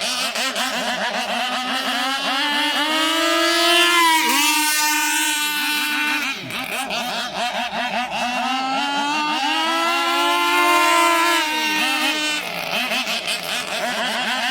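Radio-controlled model boat's small two-stroke engine running on the water, its pitch rising and falling as the throttle opens and eases off, with brief dips in revs a few seconds in and near the end.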